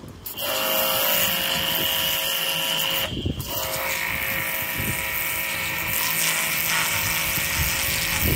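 High-pressure washer running with a steady whine while its jet blasts a potato. It cuts out briefly about three seconds in, then starts again with its upper tone a little lower.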